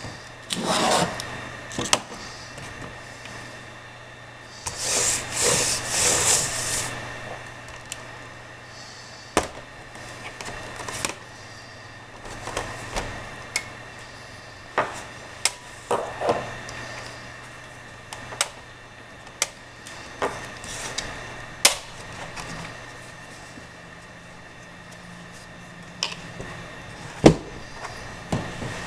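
A laptop's plastic case being handled on a work mat: scattered sharp clicks and knocks of the case and its latches, with a longer scraping rub about five seconds in as the machine is turned over and slid on the mat.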